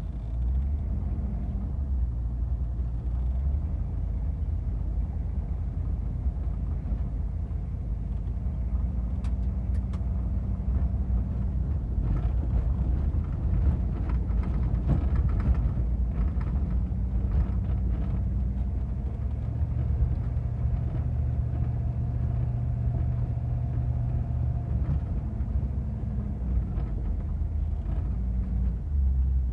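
HMMWV M998's diesel V8 running steadily under way on a dirt road, heard from inside the open cab as a low drone whose pitch shifts a little with speed. Brief knocks and rattles come now and then through the middle.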